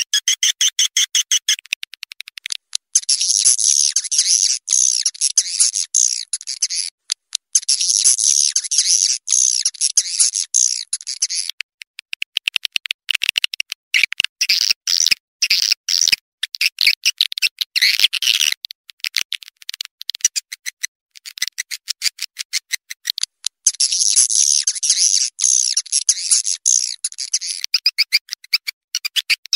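Swiftlet call-lure track: a mixed recording of swiftlet calls, fast trains of high clicky chirps alternating with dense, shrill twittering that swells up three times. It is the kind of call sound played through tweeters to draw swiftlets into a nest house.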